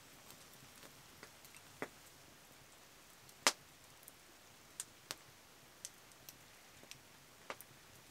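Small twig fire crackling, with sparse, irregular sharp pops; one louder pop about three and a half seconds in.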